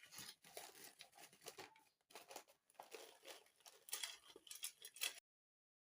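Faint crinkling and rustling of something being handled, an irregular run of small crackles that cuts off abruptly about five seconds in.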